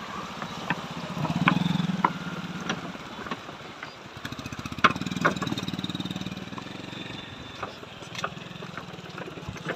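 Motorcycle engine running at low speed as the bike rolls slowly over a loose wooden-plank bridge. Irregular knocks and clacks come from the planks. The engine grows louder about a second in and again around the middle.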